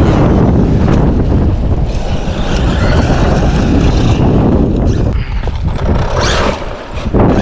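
Wind buffeting the microphone, with the whine of the Traxxas Maxx V2 RC truck's electric motor from about two to four seconds in and a short rising rev about six seconds in.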